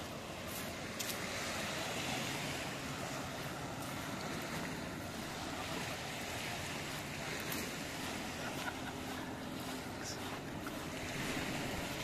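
Small waves washing on a sandy shore in a steady wash, with a faint low hum of a boat motor offshore.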